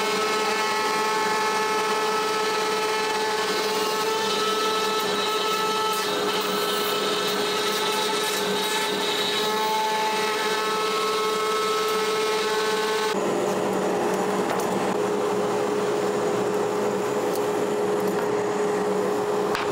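CNC router spindle running with a steady whine while its small end mill cuts through a maple board on a cutout pass. About 13 seconds in, the cutting sound changes abruptly to a plainer rush of noise while the whine carries on.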